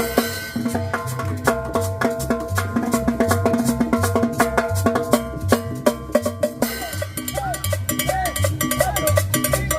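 Tropical dance band playing: a steady cowbell and percussion beat over a repeating bass line with sustained chords, and a wavering melodic line coming in about seven seconds in.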